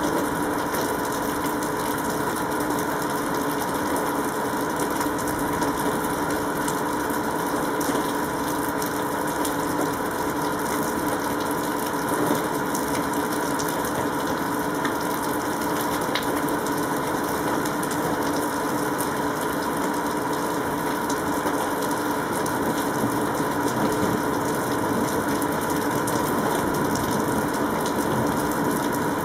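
Steady mechanical hum with a few fixed tones over an even hiss, holding unchanged throughout.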